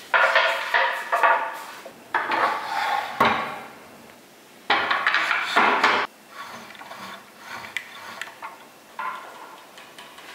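Bamboo chopping boards knocking and clattering against one another and a white wire board holder as they are handled and stood upright, with light clinks from their metal handles. Three loud spells of clatter come in the first six seconds, then only lighter knocks.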